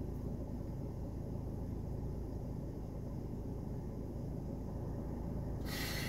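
Steady low rumble of a car engine idling, heard inside the cabin, with a short hiss near the end.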